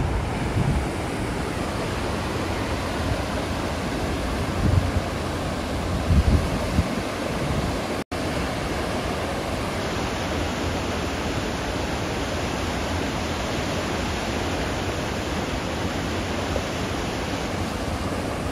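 Steady rush of flowing water, with a few low buffets of wind on the microphone in the first seven seconds and a brief dropout about eight seconds in.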